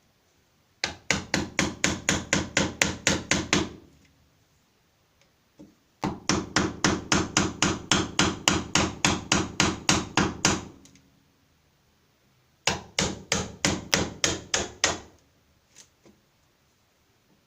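Hammer driving a wood chisel into a wooden door to cut out the hole for a deadlock. There are three runs of quick, even blows at about five a second, the middle run the longest.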